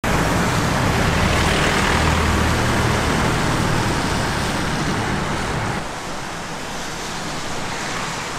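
Road traffic noise: a steady hiss and low rumble of passing vehicles, dropping somewhat in level about six seconds in.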